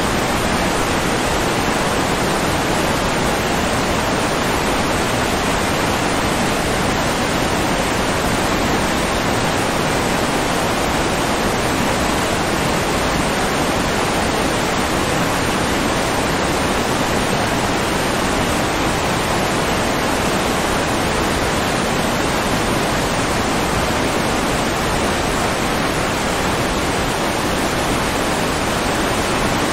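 Steady rain falling on a pond: an even, unbroken hiss in which no single drops stand out.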